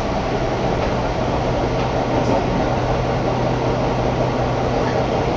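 Running noise inside a Seibu Tamagawa Line electric commuter train on the move: a steady rumble of wheels on track with a low hum underneath.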